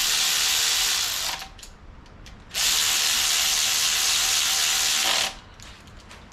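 Power tool running in two long bursts, a steady hissing whir that stops and starts again about two and a half seconds in, then cuts off near the end.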